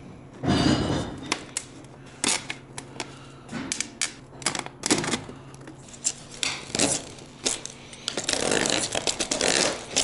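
Handling noise as an aluminium dryer vent duct is pushed into a 4-inch PVC pipe: scattered clicks and knocks, with a scraping rub of metal against plastic about half a second in and a longer one over the last two seconds.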